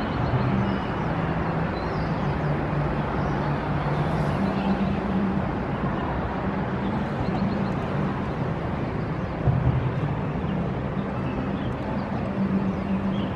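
Outdoor city ambience: a steady rumble of distant traffic with a low engine hum that fades in and out, and faint chirps over it.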